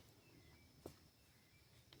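Faint forest ambience: a few short, high bird chirps over a steady high-pitched tone, with one sharp click a little under a second in.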